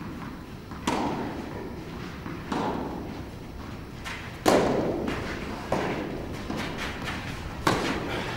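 Tennis ball struck by racquets in a rally, each hit a sharp pop with a short echo from the indoor hall. There are about five hits, roughly two seconds apart, and the loudest comes about halfway.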